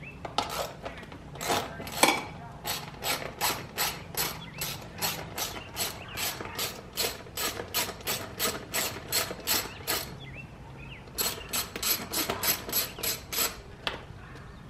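Hand socket ratchet clicking in steady runs, about three or four clicks a second, as it backs out a bolt. It pauses about ten seconds in, then clicks through another short run.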